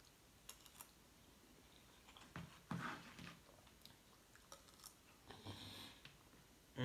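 Quiet close-up chewing of a person eating a mouthful of food, with a few faint clicks of a plastic spoon against a foam takeout container.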